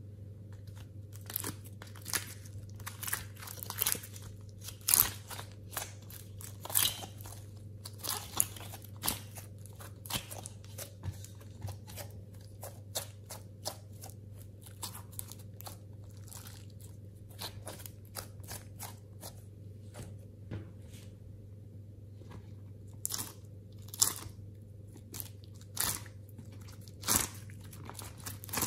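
Hands squeezing and kneading soft clay, with irregular sticky crackles and pops several times a second. They are thickest in the first seconds, sparser in the middle and loud again near the end, over a steady low hum.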